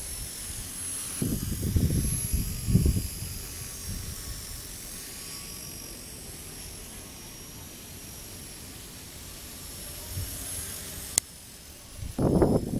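Small electric RC helicopter (Align T-REX 250) in flight, its motor and rotor making a thin high whine that wavers in pitch. Gusts of strong wind rumble on the microphone about a second in and again near the end, and there is one sharp click about eleven seconds in.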